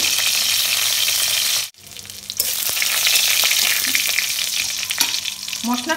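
Whole spices (dry red chillies, cardamom, cinnamon, cloves and bay leaves) sizzling as they fry in hot oil and ghee in a kadai, with a spatula stirring them. The sizzle cuts out for a moment about two seconds in, then comes back.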